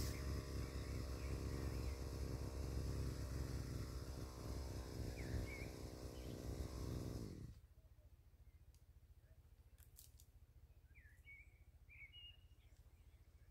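A small engine running steadily, then shut off about seven and a half seconds in, its pitch sagging as it stops. Afterwards faint bird chirps are heard.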